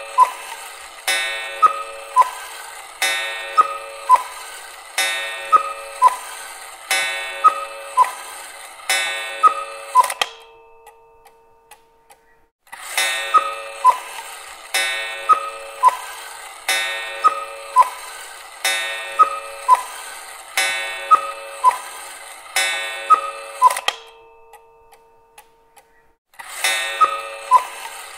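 Cuckoo clock calling: a falling two-note "cuck-oo" repeated about every one and a half seconds. It comes in runs that pause for about two seconds, roughly ten seconds in and again near twenty-four seconds in.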